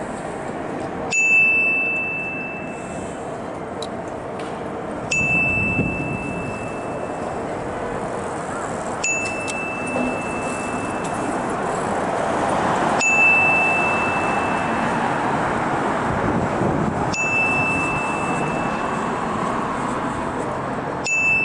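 An electronic chime dinging about every four seconds, each ding a single high tone ringing out for about a second and a half, over steady street traffic noise.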